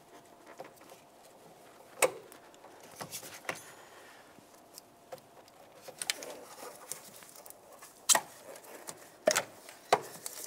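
Hand tools and gloved hands working a rubber heater hose off a metal coolant tube: scattered sharp clicks and knocks of metal on metal, with faint rustling between them. The loudest clicks come about two seconds in and again near the end.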